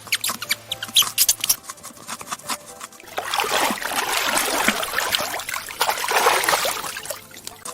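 Water splashing and trickling, after a run of light quick clicks.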